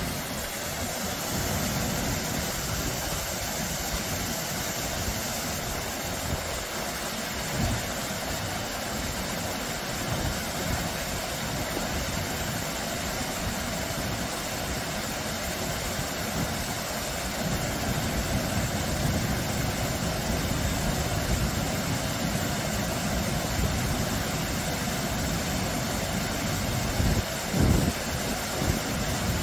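Small, low waterfall splashing steadily over boulders into a shallow pool: a continuous rush of falling water with a churning low rumble underneath. A couple of brief low thumps come near the end.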